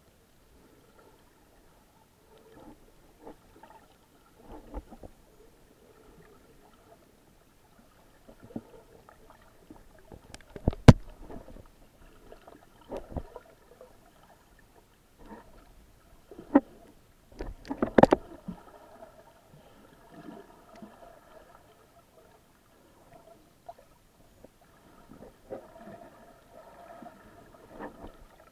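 Muffled underwater sound picked up by a GoPro in its waterproof housing: faint sloshing and gurgling water movement, broken by a handful of sharp knocks, the loudest about eleven seconds and eighteen seconds in.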